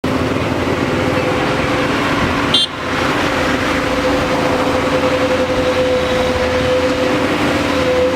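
JCB backhoe loader's diesel engine running steadily under work, with a constant drone and hum. A short break with a click comes about two and a half seconds in.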